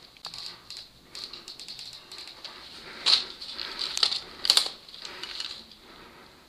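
Gritty crunching and clicking of footsteps on a floor littered with rubble and broken glass, with a few louder crunches around three to four and a half seconds in, over a steady faint high hiss.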